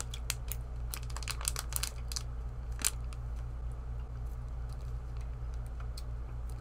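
Clear plastic candy bag crinkling and clicking as it is handled with long acrylic nails. A busy run of sharp crackles comes in the first three seconds, then it goes quieter, with only a few light clicks.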